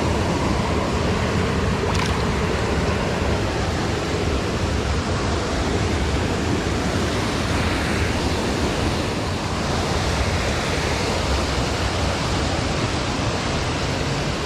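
Steady rushing of a small stream's water over rocks, a loud even noise with no pauses.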